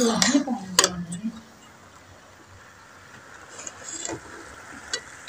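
A metal spoon stirring grated carrots in a large metal cooking pot, with a sharp clink against the pot about a second in, then a faint steady hiss and a few light scrapes and taps near the end.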